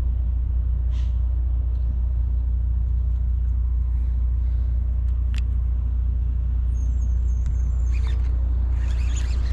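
A steady low rumble at an even level, with a few faint ticks and some short high chirps near the end.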